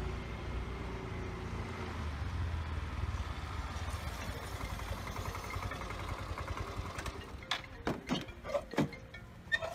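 Small motor scooter engine running as the scooter rides up and slows to a stop, fading out after about six or seven seconds. Several sharp clicks and knocks follow near the end.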